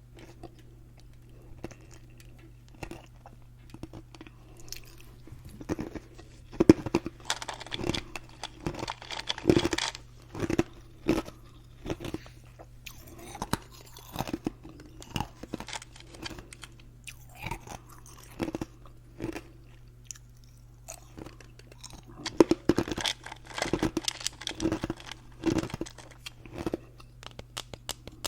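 Ice being bitten and crunched between the teeth: sharp crackling crunches, coming thick and fast in two spells with sparser crunches between, over a steady low hum.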